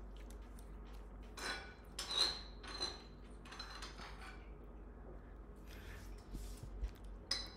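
Faint light clinks and knocks of dishes and utensils on a kitchen counter, a few scattered handling sounds, one of them ringing briefly about two seconds in.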